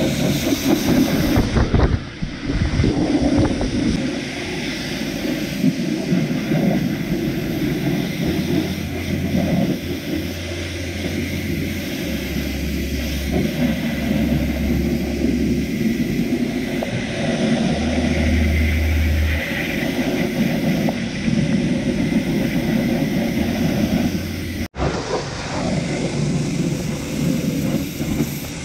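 Pressure-washer jet spraying water against the plastic wheel-arch liner, tyre and alloy wheel, then along the truck's side step, a steady hissing spatter. It cuts out for an instant near the end.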